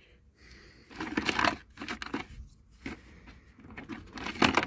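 Brass plumbing fittings clattering as they are handled and sorted, with a sharp metallic clink and brief ringing near the end as a piece is dropped.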